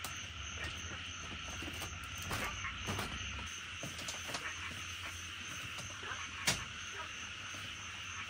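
Steady night chorus of insects and frogs, with a fast, even pulsing chirp high above the chirring. A few sharp knocks break through, the loudest about six and a half seconds in.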